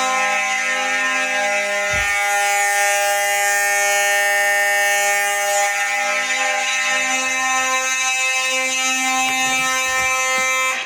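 Fire alarm notification devices sounding in alarm on a continuous (non-coded) signal, set off by a smoke detector being tested. It is a steady, really loud buzzing tone with many overtones that cuts off suddenly near the end.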